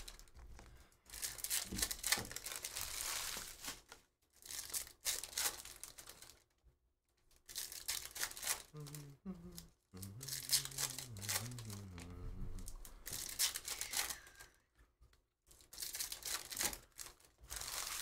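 Trading-card pack wrappers being torn open and crinkled by hand, in about six separate bursts of ripping and rustling with short pauses between.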